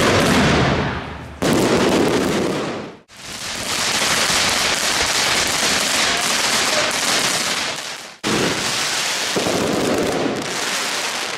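Fireworks going off: a dense hissing and crackling of sparks and bursts, cutting abruptly to a new stretch three times.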